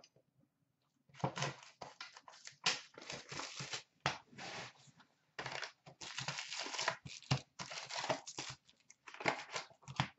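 A cardboard box of hockey card packs being ripped open by hand and the packs slid out: a run of irregular tearing, crinkling and scraping of cardboard and foil wrappers, starting about a second in.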